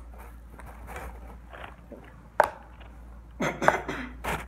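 Homemade glue slime, set with laundry detergent, being pulled and squeezed by hand over a plastic tub: soft sticky handling noises, a sharp click about halfway through, and a short run of squelches near the end.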